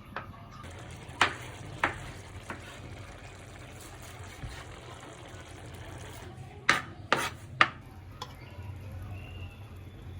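Kitchen utensils clicking and knocking: three sharp knocks in the first few seconds and three more close together about seven seconds in, over a faint steady background noise.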